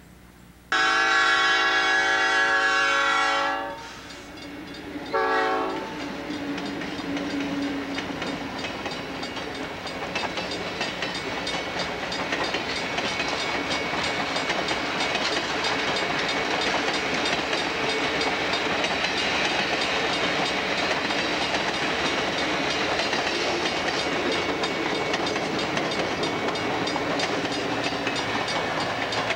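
Diesel locomotive horn at a grade crossing: one long blast of about three seconds, then a short one. Then the passenger cars roll past with wheels clicking over the rail joints, the sound slowly growing louder.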